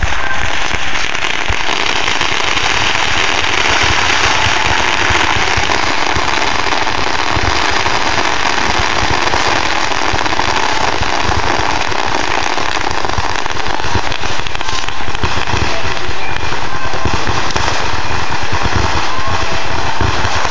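Fireworks display going off: a loud, dense, continuous crackle of many small explosions, with no separate big bangs standing out.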